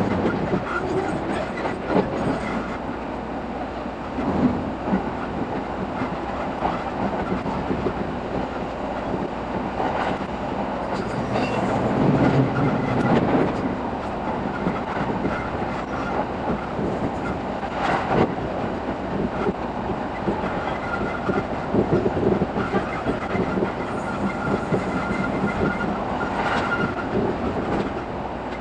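E217 series electric train running along the track, heard from inside a passenger car: a steady rumble with the clatter of wheels over the rails.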